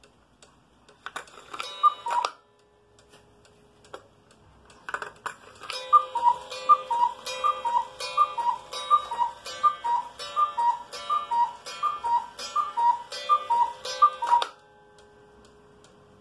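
German Black Forest cuckoo clock with a Regula 25 mechanical movement: the pendulum ticks, then the cuckoo gives one two-note call about two seconds in. From about five and a half seconds it calls twelve times in steady succession, striking the hour of twelve.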